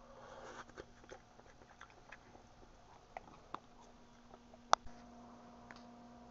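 Handling noise: a brief rustle, then scattered light clicks and knocks, with one sharp click about three-quarters of the way through, over a faint steady hum.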